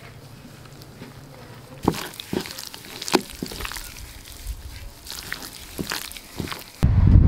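Gloved hand squeezing and kneading marinated raw chicken pieces in a plastic bowl: irregular wet squelches and clicks, starting about two seconds in. Near the end a loud low rumble of wind on the microphone takes over.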